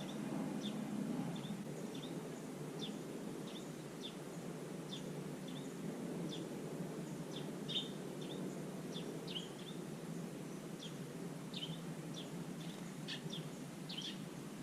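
A bird chirping in a long steady series of short, high, downward-sliding notes, about one or two a second, over a steady low background hum.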